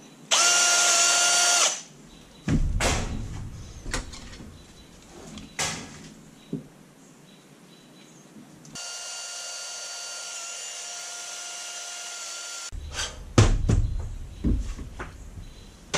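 Cordless drill enlarging the spoke holes of a bicycle hub so they fit 1/8-inch rivets: a short loud run of about a second and a half near the start, then a longer, quieter steady run of about four seconds past the middle. Knocks and clatter of handling tools and parts come between and after the runs.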